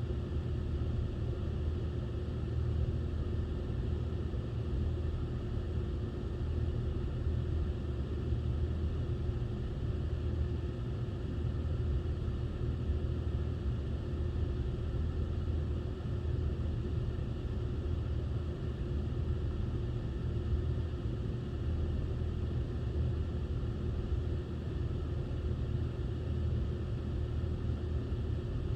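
Steady low rumble of a running vehicle, with a faint steady hum above it, unchanging throughout.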